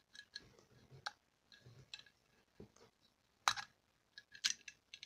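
Scattered light clicks and taps from a small novelty safe-shaped pencil sharpener being handled and its handle twisted, with a few louder clicks from about three and a half seconds in.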